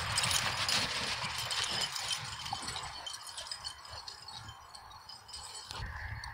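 Feet crunching and rustling over snow and dry leaves, with scattered small clicks and rattles. Louder in the first couple of seconds, then quieter.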